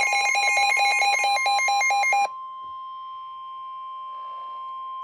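Emergency Alert System alert tones: a fast-pulsing, warbling alarm tone, about six pulses a second, layered over a steady single tone. The pulsing breaks off abruptly about two seconds in, leaving the steady tone sounding on its own.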